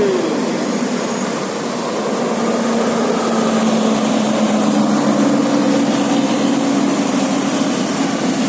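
Tour bus engine idling steadily, its hum stepping up slightly in pitch about halfway through. A falling pitched note fades out in the first half second.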